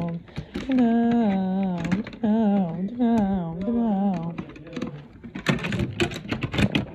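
A person humming a wordless, wavering tune in short rising and falling phrases, then, about five seconds in, a quick run of sharp clicks and rattles.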